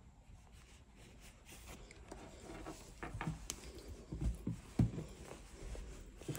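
Faint rustling of hands handling a stuffed crocheted toy and yarn, then a few soft thumps from about three seconds in as the toy is moved and set upright on a wooden table.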